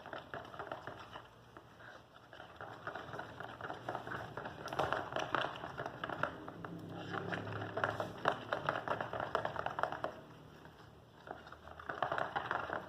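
Thick, sticky slime mixture of white glue and talc being stirred, giving a run of small wet clicks and squelches, with a short lull near the end before the stirring picks up again.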